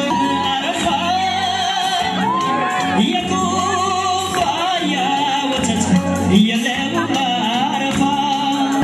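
Background music: a song with a solo voice singing a wavering, ornamented melody over instrumental backing.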